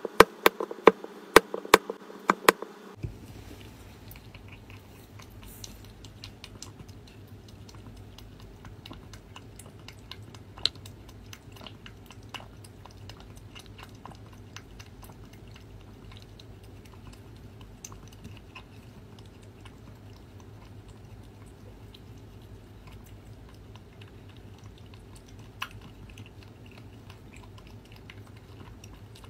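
A small metal spoon clinks sharply against a ceramic bowl about ten times over the first few seconds, breaking up soaked wet cat food. After that a cat eats the wet food from the bowl: faint, scattered chewing and lapping clicks over a steady low hum.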